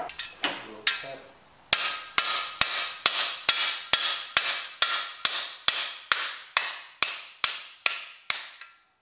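Hammer striking the end of a cam bearing driver bar, knocking an old cam bearing out of a GM Vortec 4.3 V6 block. A few scattered taps come first, then a steady run of about sixteen ringing metal blows, a little over two a second, that stops shortly before the end.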